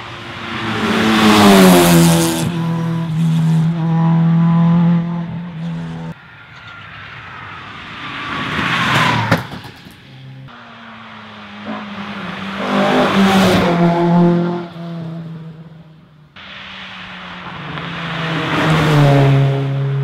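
Rally cars going flat out past the roadside one after another, four separate passes, each engine note rising and then dropping in pitch as the car goes by. The passes are cut together, so the sound changes abruptly between them.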